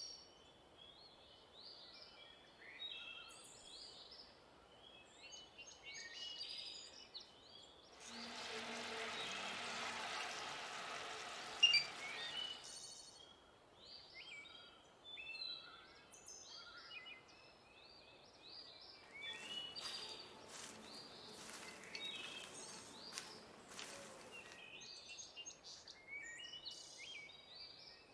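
Small birds chirping over and over, faintly. A stretch of hissing noise runs for about four seconds from a third of the way in, and another, with clicks in it, comes a little past the middle.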